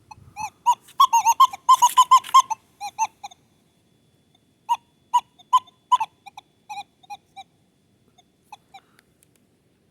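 Metal detector target tones: clusters of short beeps at one pitch as the coil is swept back and forth over a buried target, loud and rapid for the first few seconds, then sparser and fading to faint blips. A broken signal that the detectorist takes for a deep target.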